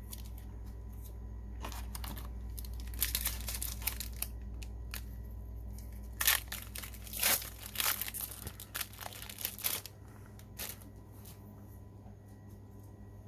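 A trading-card booster pack wrapper being torn open and crinkled, in a run of short ripping and crackling bursts that are loudest from about six to ten seconds in.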